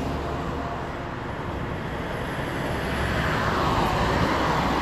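Road traffic noise: a steady low hum with tyre and road rush that grows somewhat louder over the last two seconds.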